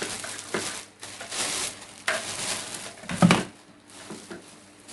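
Packaging rustling and parts being handled as a vacuum cleaner and its accessories are unpacked, in three rustling stretches, with one sharp knock a little over three seconds in.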